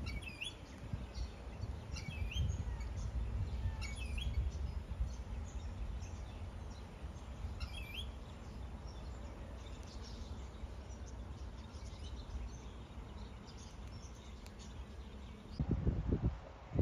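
Outdoor ambience: a bird chirping in short, high calls every couple of seconds over a steady low rumble. A louder burst of low rumble comes near the end.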